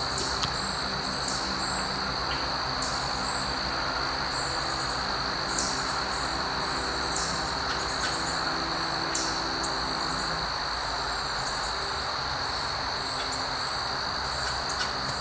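Crickets trilling in a steady high drone, with short higher chirps every second or two. Soft background music sits underneath.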